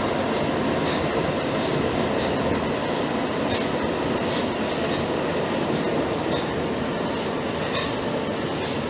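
Rubber-tyred RATP MP 73 metro train running, a steady rolling rumble with irregular light clicks about once a second, easing slightly in level near the end.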